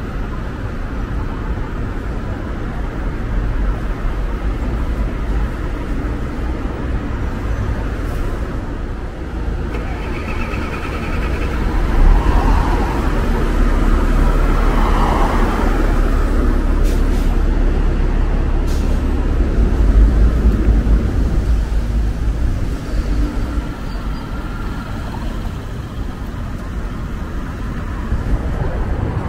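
City street traffic: motor vehicles passing with a steady low rumble that swells for several seconds in the middle, then eases off.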